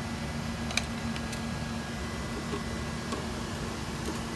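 A few light clicks as the positive battery cable is worked into a screw terminal block, over a steady hum of running equipment.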